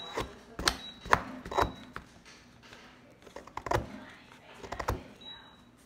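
Small blue plastic hammer knocking on a plaster dig-kit block: a series of irregular sharp taps, with a quieter pause in the middle.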